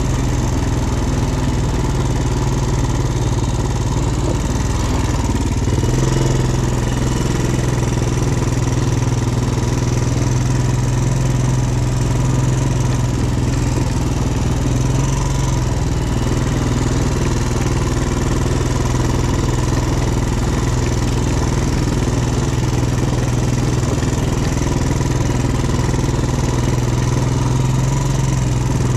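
ATV engine running steadily, heard close up, its note stepping up slightly about six seconds in.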